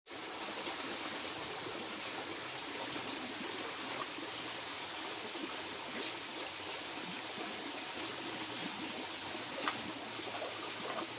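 Shallow stream water running steadily, with splashing from several people wading through it, and one short sharp knock near the end.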